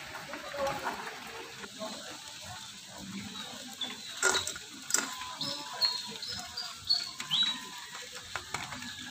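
Utility-knife blade scraping on a wooden block and an aluminium soda can as the can is turned against the blade to score it. Several sharp clicks come between about four and seven seconds in, along with a few short high squeaks.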